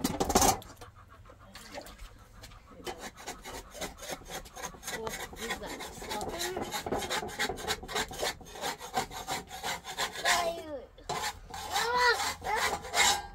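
Rapid, irregular scraping strokes, with a short call rising and falling in pitch about twelve seconds in.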